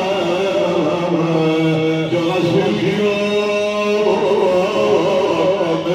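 An elderly man chanting an Arabic mourning elegy (nai), drawing out long, wavering held notes.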